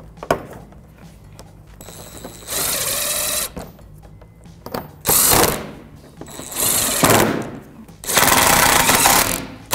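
Cordless electric impact gun with a 10 mm socket running in four short bursts as it drives bolts into a plastic undercarriage splash shield. The last burst is the longest.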